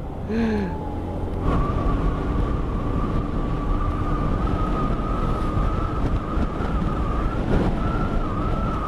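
Small motor scooter riding along with low engine and wind rumble; from about a second and a half in a steady high whine joins it, creeping slightly up in pitch.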